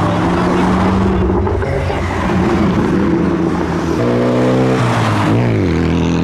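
Modified car engine accelerating as it drives past. The engine note climbs about four seconds in, then drops sharply, then settles into a steady drone.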